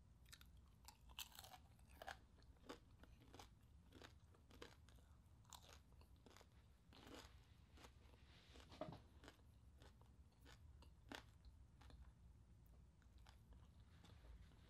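Quiet, irregular crunching of someone chewing crispy deep-fried pork (chicharon bulaklak) with the mouth close to the microphone.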